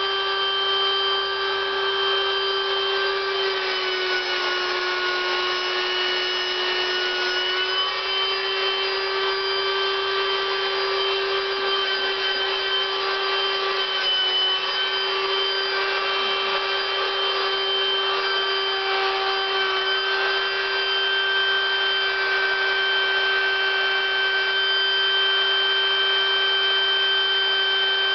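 Electric air pump running steadily, blowing air into an inflatable latex suit. Its steady hum dips slightly in pitch for a few seconds early on, then comes back up and holds.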